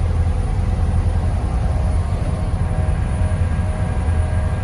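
Ferry engines running, heard on board as a steady low rumble with a faint steady hum above it.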